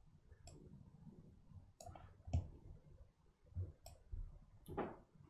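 Computer mouse clicking, about five separate clicks spread out over a few seconds, with a faint low rumble of desk handling underneath.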